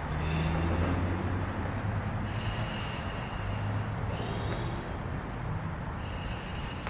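A woman blowing up a large latex punch balloon by mouth: about three long puffs of breath into the balloon, with quick hissing breaths drawn in between them.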